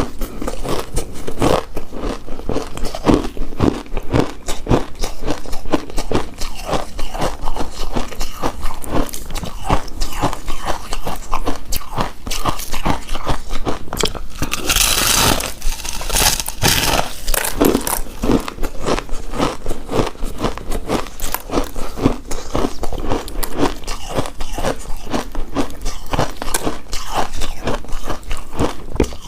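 Close-miked chewing and biting of a soft, chewy coconut-coated rice cake: many quick mouth clicks several times a second. About halfway through there is a louder, noisier stretch of a couple of seconds.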